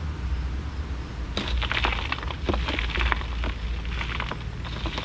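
Loose rocky soil and small stones being pushed into the hole around a cardboard sonotube as it is backfilled: a dense gritty crackle and patter that starts about a second and a half in, over a steady low rumble.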